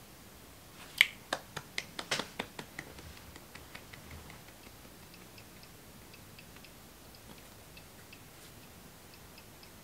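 A sharp click, then a steady run of ticks about four a second that fade quickly and carry on faintly, like a clock ticking.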